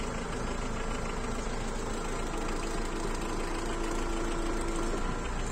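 Farm tractor's diesel engine running steadily, heard from inside its cab while the front loader lifts and dumps grain.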